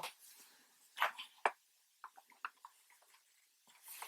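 A few faint, short clicks and taps from small lock parts being handled and set down on a table.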